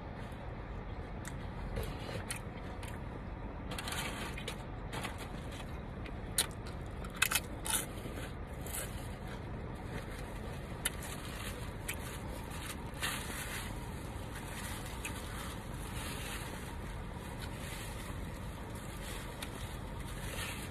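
Crackling and scraping handling sounds of food or packaging, with a few sharp clicks, over a steady low hum.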